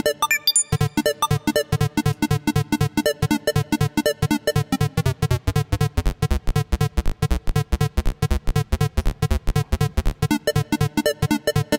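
Electronic synthesizer preset of the 'video game' type, playing fast, even, staccato notes with a bright, chiptune-like tone. Just after the start there is a short falling zap.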